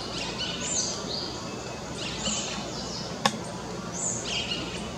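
A bird calling three times, about two seconds apart, each call a short high note that arches up and falls, over a steady background hiss; a single sharp click about three seconds in.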